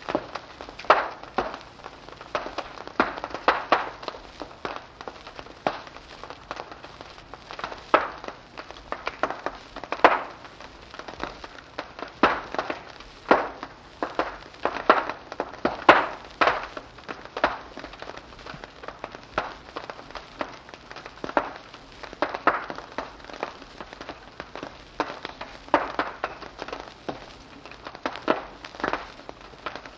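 Wood fire in a fireplace crackling: a steady, irregular run of sharp pops and snaps, several a second, over a faint hiss.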